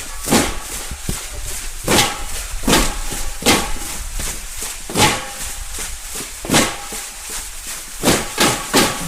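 A series of sharp percussive knocks or claps, irregularly spaced about one or two a second, with a quicker run of four near the end.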